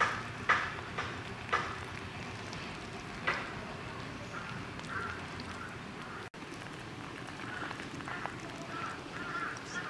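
Water poured off from a stainless steel pot onto the ground, with the steel lid, held against the rim with a cloth, knocking sharply against the pot a few times in the first few seconds. Short animal calls sound in the background about five seconds in and again near the end.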